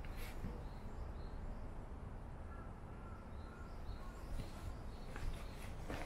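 Quiet outdoor ambience: a steady low background rumble, with a few faint, distant bird chirps in the middle and a couple of soft footsteps near the end.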